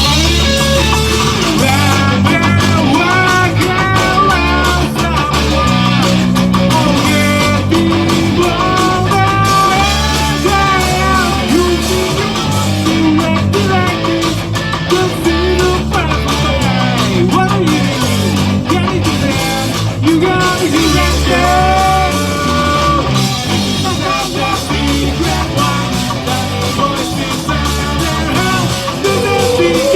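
Rock music: guitars over a bass line that moves in held blocks of notes, with a bending melody line above.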